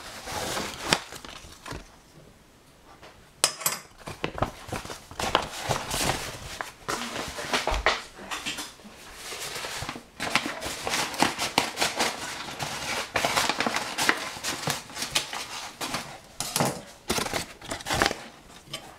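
Kitchen work: repeated scrapes, taps and clinks of a utensil against a metal pan holding banana and flour, quieter for a moment about two seconds in.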